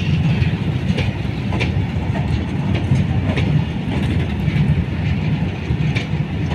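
Long freight train of flat wagons rolling slowly past: a steady low rumble of wheels on rail, with a sharp wheel clack recurring about every half second to a second.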